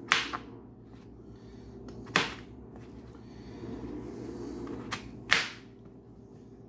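Kitchen knife chopping through raw potatoes onto a plastic cutting board: three sharp chops a couple of seconds apart, over a steady low hum.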